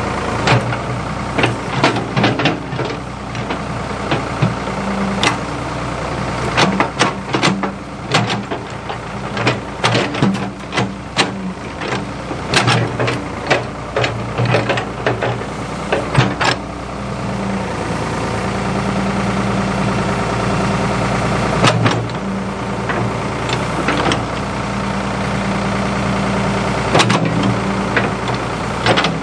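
Ford 555 backhoe's engine running steadily while it works, with frequent sharp knocks and clanks, thickest through the first half and a few more near the end.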